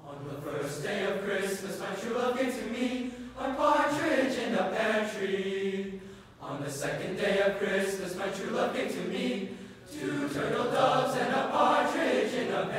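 Boys' choir singing a cappella in several parts, in phrases broken by short breaths about 3.5, 6.5 and 10 seconds in.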